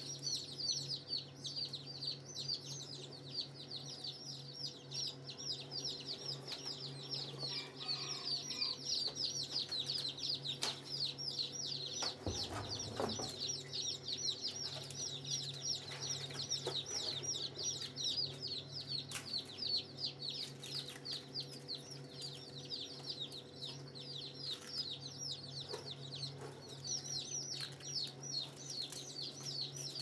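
A crowd of newly hatched chicks peeping nonstop, many quick high chirps overlapping, over a steady low hum. There is a brief knock about twelve seconds in.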